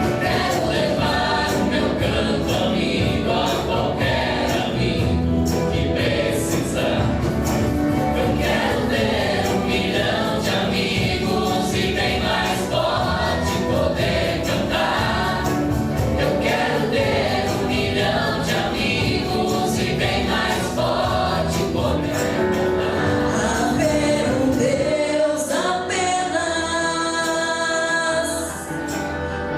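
A choir singing over instrumental accompaniment with a steady beat. The beat and bass drop out about four to five seconds before the end, leaving held chords.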